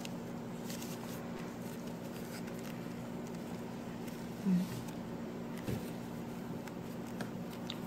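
Faint rustling and crinkling of a banana leaf being folded by hand into a pyramid wrapper, over a steady low hum, with one soft thump about halfway through.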